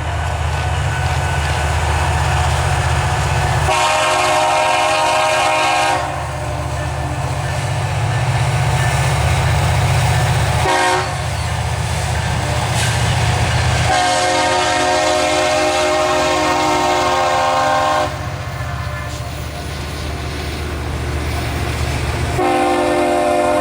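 Diesel freight train led by EMD locomotives passing, its engines rumbling low under several long horn blasts: one about four seconds in, a longer one from about fourteen seconds, and another near the end.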